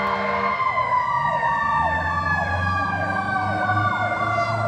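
Fire truck sirens: a long steady wail that slowly falls in pitch, overlaid by a second siren's rapid repeating sweeps. A low truck engine rumble comes in about two seconds in.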